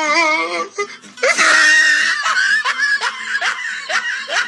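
High-pitched laughter: a wavering voice, then a loud squeal about a second in, followed by a quick run of short 'ha-ha' bursts, about four a second.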